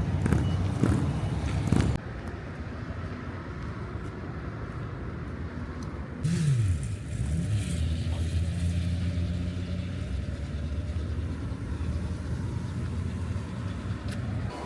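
A motor vehicle's engine running. About six seconds in its pitch dips and rises twice, as if revving or changing gear, and then it settles into a steady low hum.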